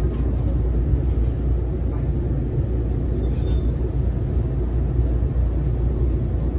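Steady low rumble of a Daegu Metro Line 3 rubber-tyred straddle monorail car running, heard from inside the car as it pulls out of a station onto the elevated guideway.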